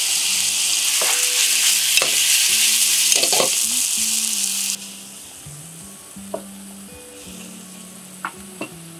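Chicken and root vegetables (lotus root, burdock, carrot, shiitake) sizzling in oil in a frying pan while being stir-fried with chopsticks, with light clicks of the chopsticks against the pan. This is the stir-fry stage of nishime before it is simmered. The loud sizzle drops off sharply a little past halfway, leaving a quieter sizzle and a few soft clicks.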